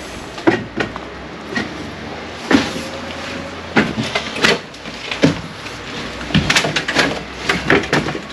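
Irregular knocks, clacks and scuffs, over a dozen of them with the busiest run near the end, and a faint creak about three seconds in.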